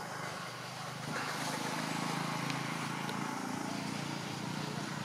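A motor vehicle's engine swells in about a second in, runs steadily and eases off near the end, over an outdoor background hiss.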